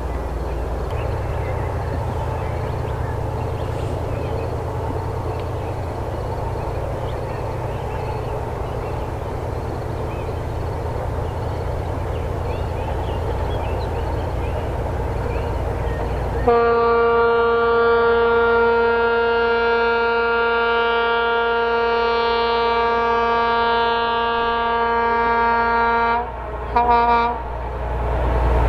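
2M62U diesel locomotive approaching with a steady low engine rumble. Partway through, its typhon air horn sounds one long steady blast of about ten seconds, then two short blasts near the end.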